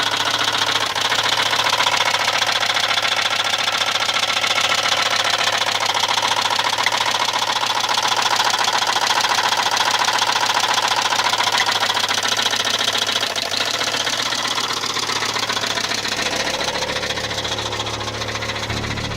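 Volvo 850 turbo's inline five-cylinder engine running with a fast, steady knocking in time with the engine. It is a rod knock from worn connecting-rod bearings, which the owner takes for one of the rods and not the cams.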